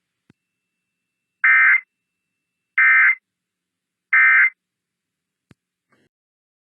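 Emergency Alert System end-of-message (EOM) signal: three short bursts of digital data tones, about 1.3 seconds apart, closing the IPAWS required weekly test. A faint click comes before the first burst and another after the last.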